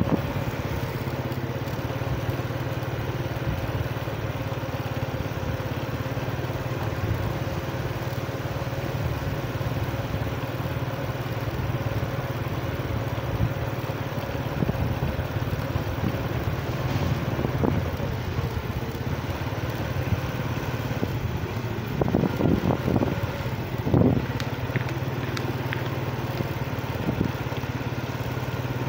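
Small motorbike engine running steadily while riding slowly along a street, with a few brief louder noises about three-quarters of the way through.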